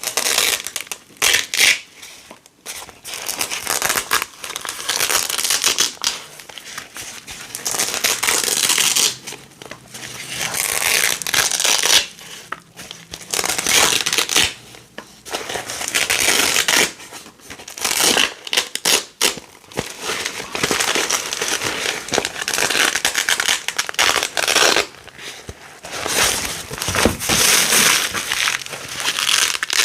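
Small pieces of hook-and-loop (Velcro) tape being pulled apart and pressed together, close up. It makes crackly, crunchy rips that run for a second to several seconds at a time, broken by short pauses.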